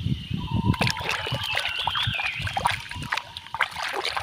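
A hand sloshing and splashing in a plastic tub of soapy water, with irregular small splashes and drips. Near the start, plastic knocks and thumps as a toy is set down in a plastic basket.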